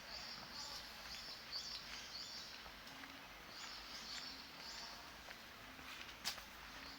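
Small birds chirping again and again over faint street ambience, with one sharp click about six seconds in.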